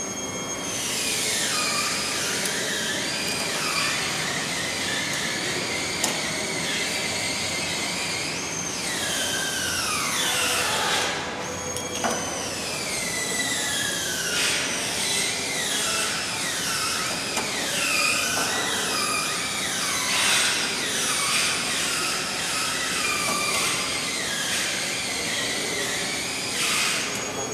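Repeated high metallic squeals, each gliding down in pitch, overlapping one after another, from the knife bolts of a guillotine paper cutter being turned with long-handled wrenches as the knife is fastened in. A sharp click comes twice, about six and twelve seconds in.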